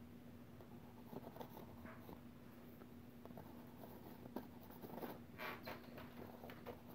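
Faint scraping of a palette knife drawing oil paint across a stretched canvas in short irregular strokes, a few slightly stronger ones in the second half, over a faint steady hum.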